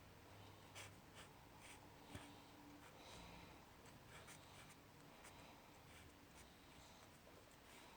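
Faint scattered clicks and scratchy rubbing of a Fidget Cube's buttons and switches being fiddled with by hand.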